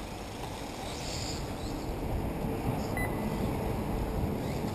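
Wind rumbling on the microphone, with one short electronic beep about three seconds in.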